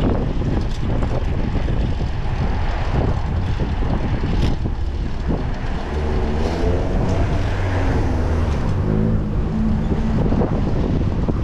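Loud, steady rumbling wind and road noise on the microphone, with a motor vehicle's engine note rising slowly in pitch from about six seconds in and fading out near ten seconds.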